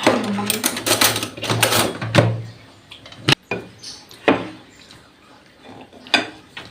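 Plates and cutlery being handled at a meal: a busy rustling clatter for about two seconds, then three separate sharp knocks.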